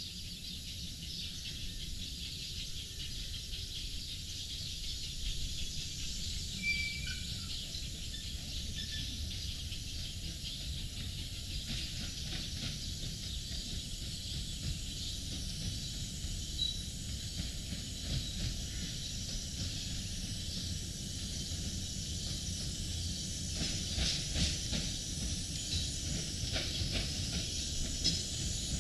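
Ravenglass and Eskdale Railway 15-inch gauge steam locomotive running into the station with its train, steam hissing, with a cluster of sharp clicks and knocks in the last few seconds as it comes close.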